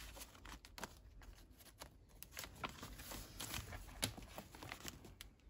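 Paper rustling with soft ticks and taps: the pages, pockets and paper inserts of a handmade junk journal being handled and turned.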